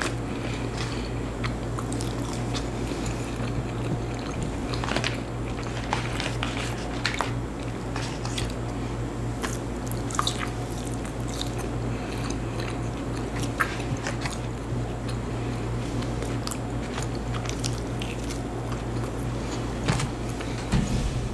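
A person eating close to the microphone: chewing and biting with many small scattered crunches and mouth clicks, over a steady low hum.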